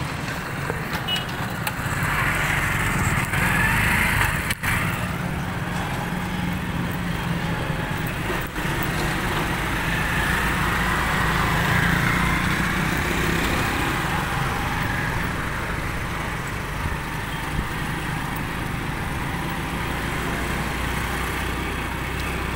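A small vehicle engine running steadily, with wind and road noise while riding along a street.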